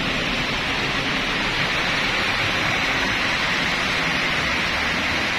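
Steady, even hiss with a faint low hum underneath.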